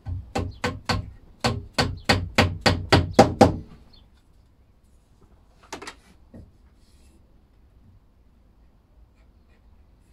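Rubber mallet tapping domino tenons down into their mortises in the end of a pine board: about a dozen quick, sharp knocks at roughly three a second, stopping after about three and a half seconds. A single softer knock follows about six seconds in.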